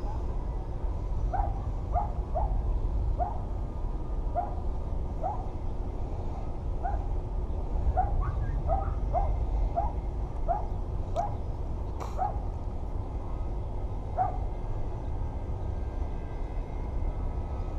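Short, high animal calls repeated about twenty times at an uneven pace, over a steady low wind rumble on the microphone, with a couple of sharp clicks about two-thirds of the way in.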